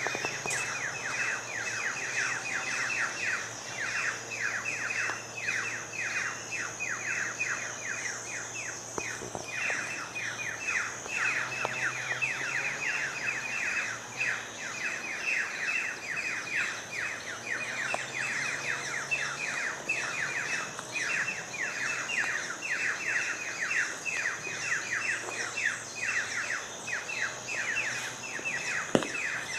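Birds chirping in a continuous chorus: quick, downward-sliding chirps repeating several times a second, over a steady high-pitched hum.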